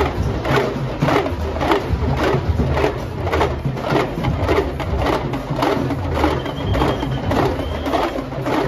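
A group of small hand-held drums beaten with sticks in unison, a steady, driving beat of about two to three strokes a second.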